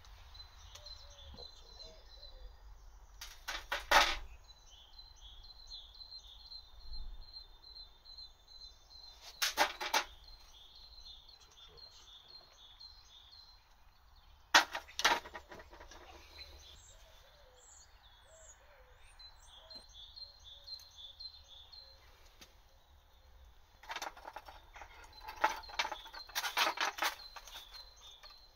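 Steel foundry tools knocking and clinking against a metal tray and crucible: single sharp knocks every few seconds while dross is skimmed off molten aluminium, then a run of clinks near the end as the crucible is lifted out with tongs and set down. A small bird chirps repeatedly in the background.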